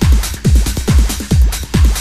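Electronic dance music with a steady four-on-the-floor kick drum at about two beats a second, hi-hats and synth above it.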